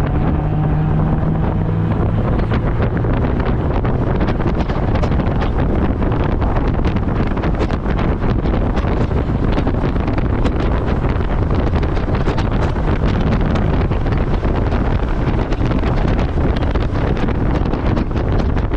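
Heavy wind buffeting on the microphone in the open-top 2019 Mazda Miata MX-5 at track speed, with the car's engine running underneath. The engine's note shows through more clearly in the first couple of seconds before the wind rush covers it.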